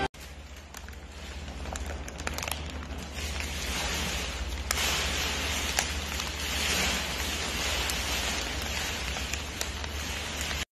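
A raccoon handling a crumpled foil chip bag as it eats from it: steady crinkling and crackling with scattered sharp clicks, growing louder about four seconds in.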